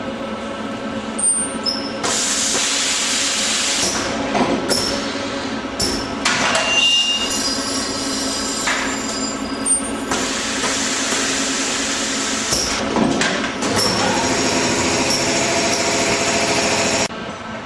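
Multi-head ultrasonic spot welding machine working on plastic car dashboard air ducts: a steady mechanical hum under long stretches of loud hissing noise, with scattered clicks and a short high-pitched squeal about seven seconds in.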